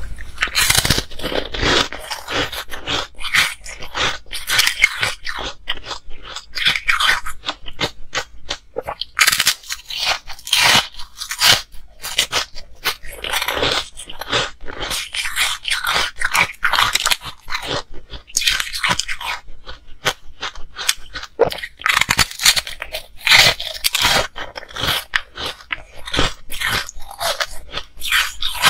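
A person crunching and chewing pink ice discs: dense runs of sharp cracks and crackles as the ice is bitten and ground, with short pauses between bites.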